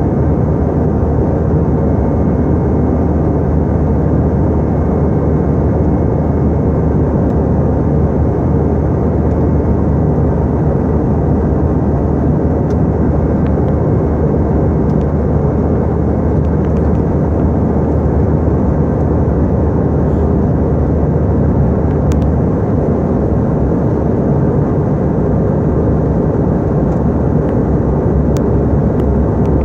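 Steady cabin noise inside an airliner in flight: engines and rushing air blend into one dense roar. The low hum underneath eases about three-quarters of the way through.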